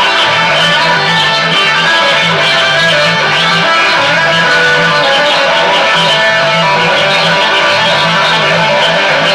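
Loud live band music led by electric guitar, with a low bass note pulsing in a steady repeating pattern underneath.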